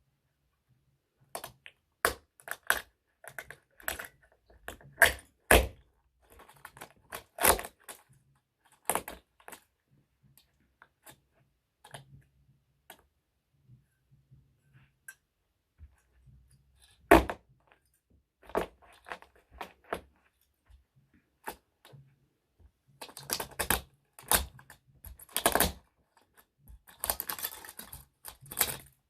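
A small toy truck being crushed: irregular sharp cracks and snaps, with a few loud single cracks and, near the end, two dense runs of crackling.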